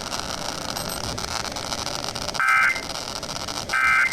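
Radio static hiss, then two short bursts of two-tone digital data about a second and a half apart, the first about two and a half seconds in: the EAS/SAME end-of-message code that closes an emergency alert broadcast on NOAA Weather Radio.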